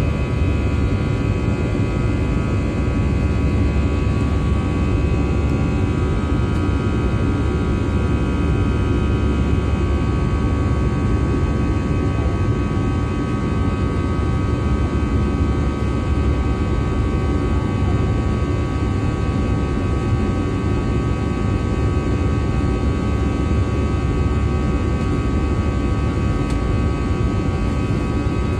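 Airbus A320 jet engines running steadily during takeoff: a continuous deep roar with a steady whine of several fan tones layered on top.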